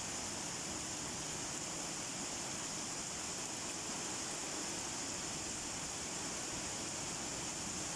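Steady rain falling, an even hiss with no single drops or changes standing out.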